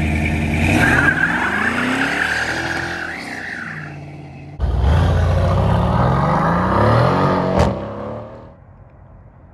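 1968 Ford LTD's 390 V8 revving, then launching hard from a standstill, rising in pitch as it accelerates while the rear tyres squeal and smoke. After a cut the big V8 accelerates again and fades out near the end.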